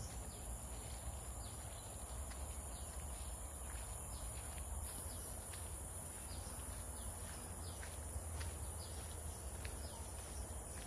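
Tropical forest ambience: a steady high-pitched insect drone that grows a little louder about halfway, with many short chirps over it and a low rumble underneath.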